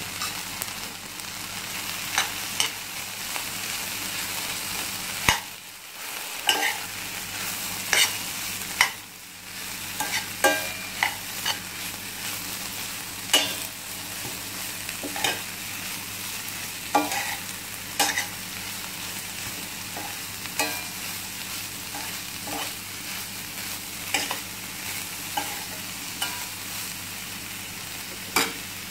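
Shredded chicken, onion and capsicum sautéing and being stirred in a steel pan: a steady sizzle with frequent irregular clicks and scrapes of the stirring utensil against the pan.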